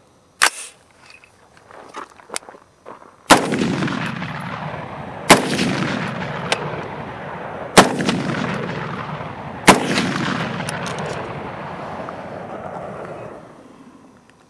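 Four shots from a short-barreled AR-15 pistol firing steel-cased ammunition, about two seconds apart. Each shot is followed by a long rolling echo that fades out about a second before the end. A single sharp click comes about half a second in.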